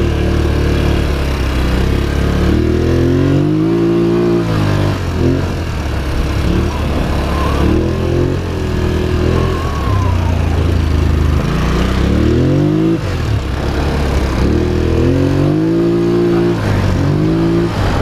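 Polaris Sportsman XP 1000 S ATV's twin-cylinder engine under way, revving up and easing off about four times as the throttle is opened and closed.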